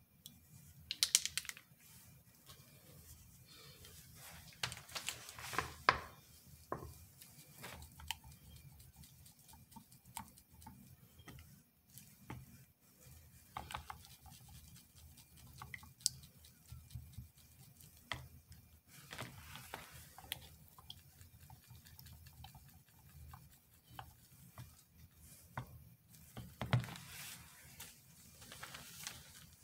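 Scattered light clicks, taps and brief rustles of a gloved hand handling the paper liner of a soap loaf mould and the plastic cups beside it.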